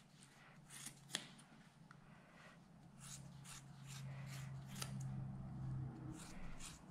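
Small grooming scissors snipping through angora rabbit wool: about a dozen soft, irregularly spaced snips.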